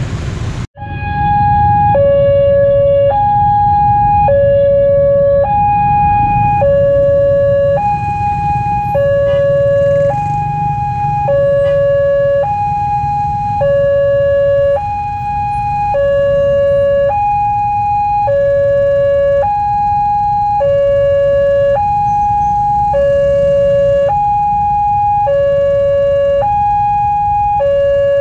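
Railway level-crossing warning alarm sounding two alternating tones, high then low, each held about a second in an even repeating pattern, signalling an approaching train. It starts just after a brief break about a second in, over a low background rumble.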